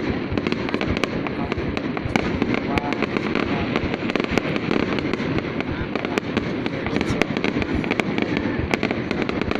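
Fireworks going off in a dense, continuous crackle of sharp pops, with people's voices faintly underneath.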